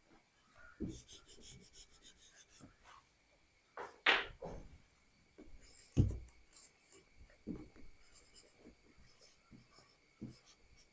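Faint, scattered rubbing and soft knocking sounds, a few short ones spread a second or two apart, the clearest about four and six seconds in.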